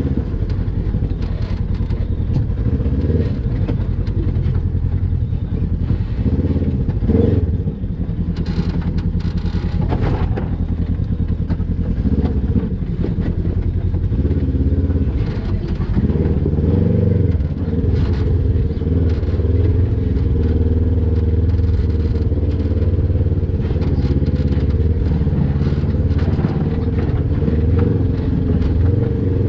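Polaris RZR XP 1000 side-by-side's twin-cylinder engine running at low speed over rocks, its revs rising and falling as the throttle is worked, with a few clunks and clatter from the machine on the rocks about seven to ten seconds in.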